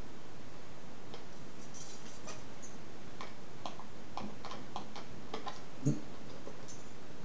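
A single-hole punch being worked on a thin clear plastic cup: a scatter of small clicks and crackles, with one louder click near the end.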